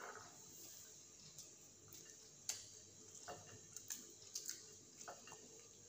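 Near silence with a few faint, scattered clicks and ticks of someone eating: chewing and fingers picking at fried chicken snacks on a plate. The sharpest click comes about two and a half seconds in.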